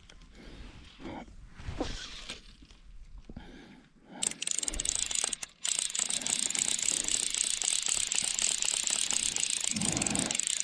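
Pflueger Medalist click-pawl fly reel ratcheting as the spool turns, a fast, steady buzz of clicks that starts about four seconds in, with one brief break shortly after.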